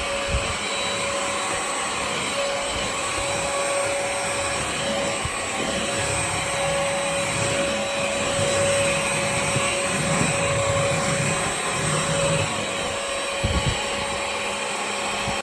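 VersLife cordless stick vacuum running steadily, its motor giving a constant whine over the rush of airflow, with a couple of brief low knocks.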